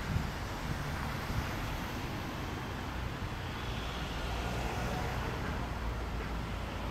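Steady outdoor background rumble of distant road traffic, with wind on the microphone.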